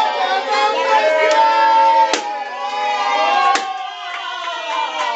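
A crowd of people shouting and singing together, many voices overlapping, with two sharp knocks about two and three and a half seconds in.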